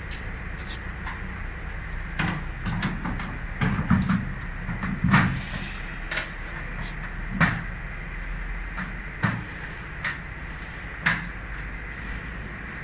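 Irregular knocks and clatter of machine parts and panels being handled during work on a CO2 laser cutting machine, over a steady low hum. The knocks come in a busy cluster from about two to six seconds in, then as single sharp clacks every second or so.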